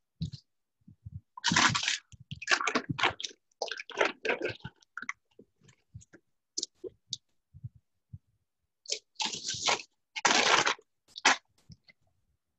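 Scattered crunching and rustling noises coming through a video-call microphone, in irregular bursts that cut in and out to dead silence, thickest in two clusters near the start and towards the end.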